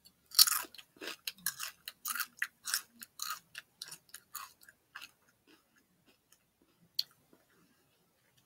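Crunchy chewing of Sun Chips multigrain chips close to the microphone: a quick run of crisp crunches, about two to three a second, that thins out and stops about five seconds in. One lone click follows later.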